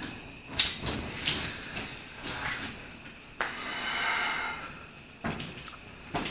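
Air being blown by mouth through a tube into a condom to inflate it: several short puffs and one longer blow of about a second and a half in the middle.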